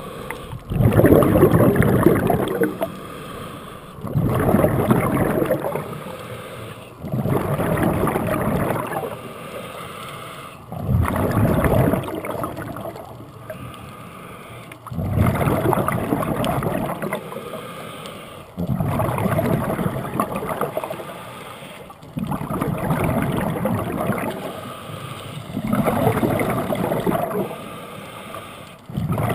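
Scuba diver breathing through a regulator underwater: a rush of exhaled bubbles lasting about two seconds comes every three to four seconds, with quieter stretches between breaths.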